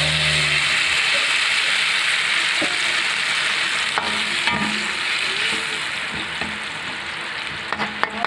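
Stir-fry sizzling steadily in a hot wok with a little water just added, the sizzle slowly easing in the second half. A metal spatula scrapes through it and clicks against the pan a few times.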